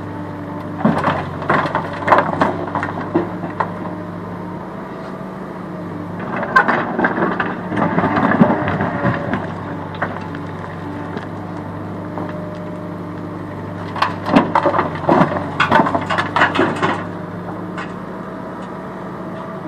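Case backhoe loader's diesel engine running steadily, with three spells of rocks and gravel clattering and crunching as its bucket digs stones and dumps them into a tractor trailer: one shortly after the start, one in the middle and one about three quarters through.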